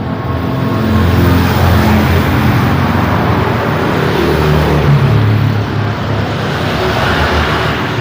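Busy road traffic: tyre and engine noise from passing vehicles, with a deep engine note from a large vehicle that swells for a few seconds in the middle and shifts in pitch as it goes by.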